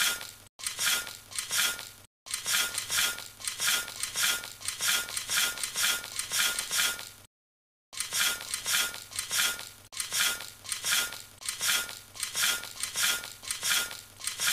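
A small metal trowel scraping and packing damp soil in quick repeated strokes, about three a second, with a few short silent gaps.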